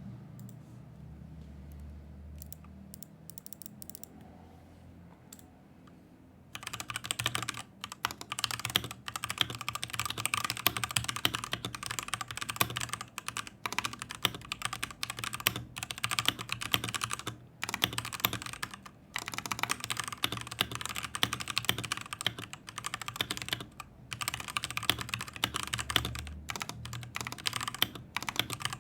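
Husky Hailstorm mechanical keyboard with stock, unmodded Gateron Red linear switches being typed on. A few scattered keystrokes come first, then fast continuous typing from about six seconds in, broken by a few brief pauses.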